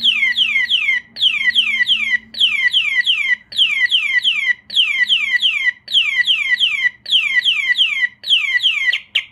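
Gorilla motorcycle alarm siren on a Yamaha R1 going off in full alarm, set off by a hard tap on the seat. It repeats bursts of four or five quick falling whoops, about one burst a second, and cuts off near the end after a couple of short chirps as it is disarmed.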